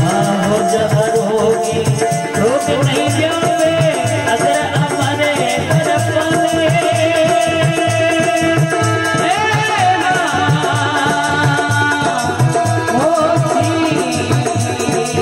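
Live Rajasthani bhajan music: a harmonium plays a sustained melody over a steady dholak beat, with small percussion clattering in time. A melodic line with vibrato rises above the accompaniment a few times.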